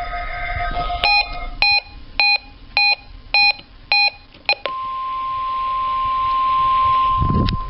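About seven short electronic beeps, roughly two a second, then the NOAA Weather Radio warning alarm tone: a single steady tone that comes in a little after the beeps and grows louder.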